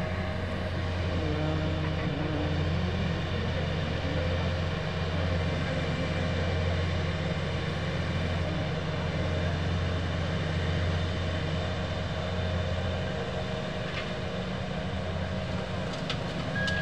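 Diesel engines of Kobelco crawler excavators running steadily under load while digging and loading soil into a dump truck, a continuous low drone. Near the end a high electronic beeping starts.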